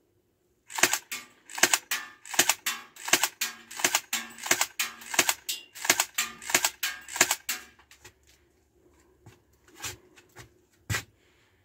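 Electric blowback airsoft Beretta M92F, lightly upgraded and painted with a metallic finish, fired semi-auto about twenty times in quick succession, roughly three shots a second, each shot a sharp snap of the motor-driven piston and slide. Near the end come a few faint handling clicks and one sharper click.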